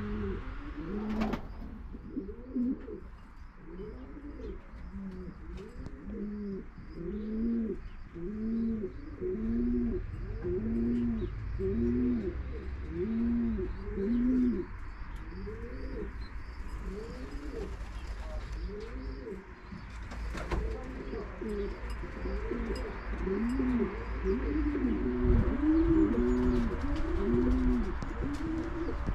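Racing pigeons cooing: a steady run of low arched coos, about one a second, growing louder near the end, with a small bird chirping faintly and quickly in the background.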